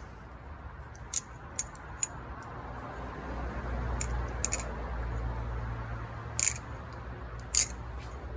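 Kershaw Lucha balisong with titanium handles being flipped: its handles click and clack sharply against the tang as they swing, about seven separate clicks spread unevenly through the tricks, over a low hum that swells about three seconds in.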